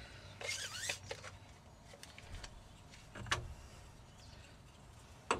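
Faint clicks and light scraping of a steel ruler and straightedge being handled against a brake booster's pushrod, with a sharper click near the end.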